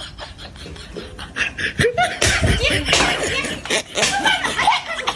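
Laughter, starting about a second and a half in and growing louder, after a few faint short clicks.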